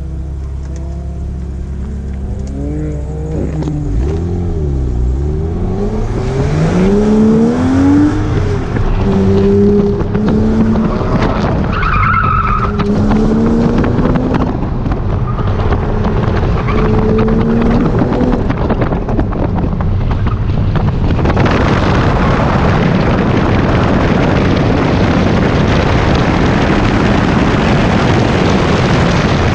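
Porsche flat-six engine revving up and down through an autocross run, its pitch climbing on the launch and then rising and falling with throttle and gear changes, with a brief tyre squeal about twelve seconds in. From about two-thirds of the way through, a loud steady rushing noise covers the engine.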